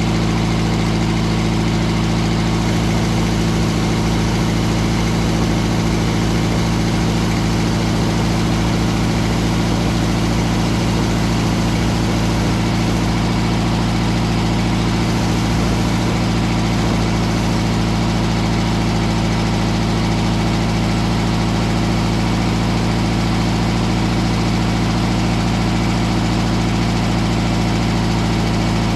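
Engine of a Mobile Dimension circular-blade sawmill running steadily at a constant speed, with an even, unchanging hum.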